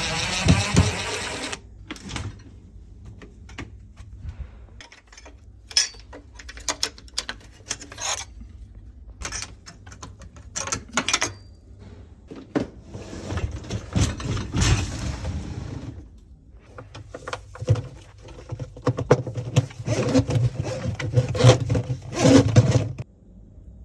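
Irregular clicks, knocks and scrapes of hands-on work with tools and parts, with a stretch of hissing noise about halfway through and denser knocking over a low hum near the end.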